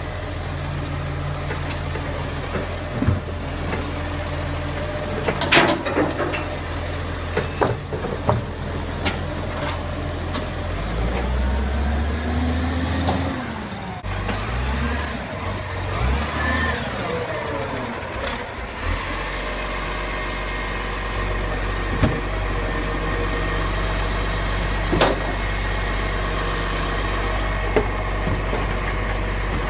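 Side-loading garbage trucks running as their automated arms lift and tip wheelie bins. The engine rises and falls in pitch as it revs to drive the arm, with sharp knocks several times as bins hit the truck.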